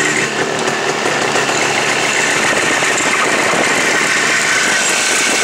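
Jawa motorcycle's two-stroke twin engine running steadily as the bike is ridden in second gear, with a dense, even road-and-wind noise over it.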